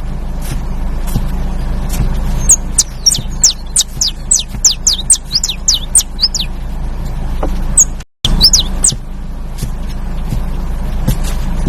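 Saffron finch (canário-da-terra) singing: a run of quick, sharp notes, each sliding down in pitch, several a second, with a steady low hum beneath. The sound cuts out for a split second about two-thirds of the way through.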